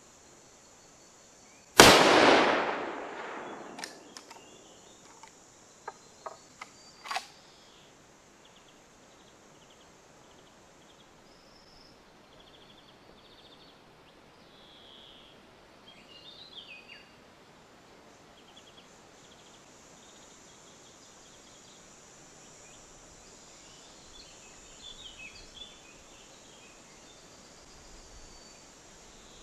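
A single shot from a Winchester Model 1895 lever-action rifle firing a commercial 7.62x54R cartridge, a sharp crack with an echo that dies away over about two seconds. Then a quick series of metallic clicks and clacks as the lever is worked to eject the spent case and chamber the next round.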